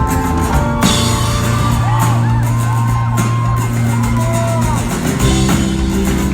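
Rock band playing live in a concert hall. The drums drop out about a second in, leaving a long held bass note with voices sliding in pitch over it. The full band with drums comes back in near the end.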